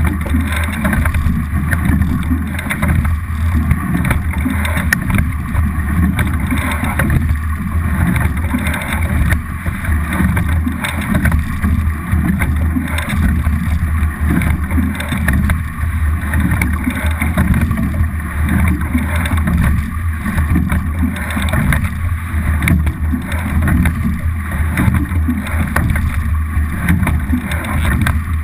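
Water rushing along the hull of a double scull under way, with wind buffeting the boat-mounted camera's microphone as a steady low rumble.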